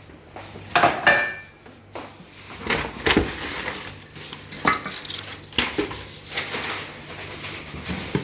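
Stainless steel pots and lids clinking and clanking as they are lifted out and set down, a string of separate knocks, some with a short metallic ring.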